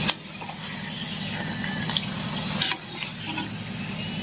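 Hot oil sizzling as a besan puri deep-fries in a kadhai, with a couple of light clicks from the steel slotted spoon.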